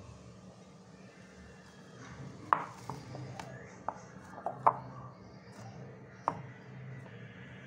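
Hands kneading dough in a glass mixing bowl, with about seven sharp ringing taps as the hand knocks against the glass. The loudest come about two and a half and four and a half seconds in.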